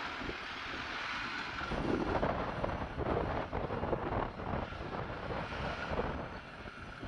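Strong gusty wind buffeting the microphone, rising and falling unevenly in rough rushes.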